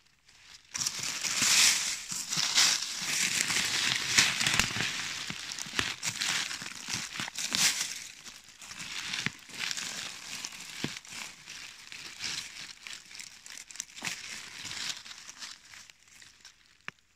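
Dry fallen beech leaves crackling and rustling as a hand pushes through them to clear around a porcini mushroom and pull it up. The sound starts suddenly just under a second in, is loudest in the first half, and thins out toward the end.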